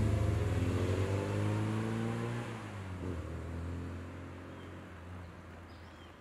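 Classic Mini's A-series four-cylinder engine driving away, rising slowly in pitch as it accelerates and dropping about three seconds in. It then fades steadily as the car recedes.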